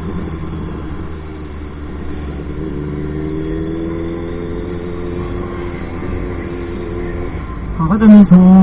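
Motorcycle engine running steadily as the bike rides along, its pitch rising a little about three seconds in. Near the end a loud voice cuts in suddenly, louder than the engine.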